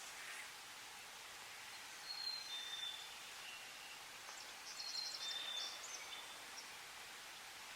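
Small songbirds singing in the woods: short phrases of clear, level whistled notes, heard about two seconds in and again around five seconds, the second with a quick run of high notes, over a faint steady hiss.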